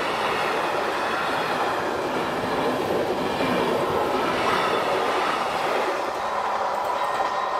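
Passenger train's coaches rushing past at speed over a level crossing, wheels clattering on the rails. The noise eases a little about six seconds in as the last coach clears the crossing.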